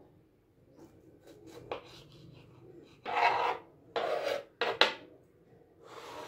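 Kitchen knife cutting a tomato on a wooden surface: a few light taps, then four loud rasping strokes of the blade against the wood in the second half.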